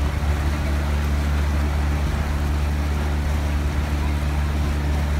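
Motorboat engine running steadily under way, a low even hum, over a constant hiss of water and wind past the boat.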